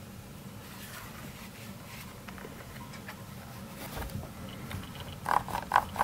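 Quiet handling of a keyboard, then near the end a quick run of sharp clicks, about four or five a second, as the Roccat Horde's rotary knob is turned through its tactile detent steps.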